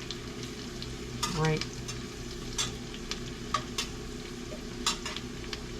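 Chopped vegetables sizzling as they soften in a soup pot, stirred with a spoon that clicks and scrapes against the pot several times, over a steady low hum.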